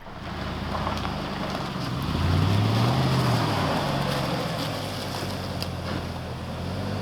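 A truck engine running with rushing road noise. About two seconds in it revs up, peaks, then settles back to a steady run. The sound cuts in and out abruptly.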